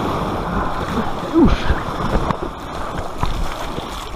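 Shallow surf washing and splashing around the hull of an inflatable kayak as it is brought through the shallows onto the beach. A short falling voice-like sound about a second and a half in.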